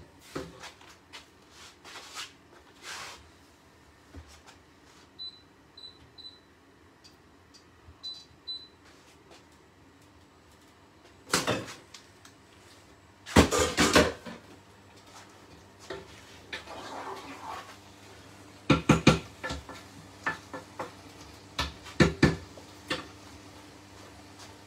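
Pots, lids and a wooden spoon clattering on a hob as a steaming pot of chili is stirred and a lidded frying pan is handled, with a few louder bursts of knocking and scraping. Five short high beeps sound in quick succession early on, and a faint low hum comes in about halfway.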